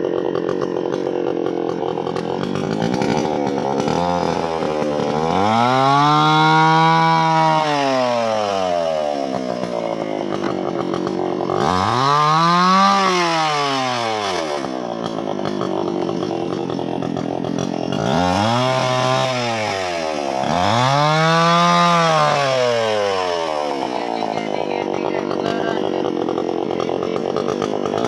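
Chainsaw cutting wood, its engine pitch swelling up and falling back four times, with steady running between the swells.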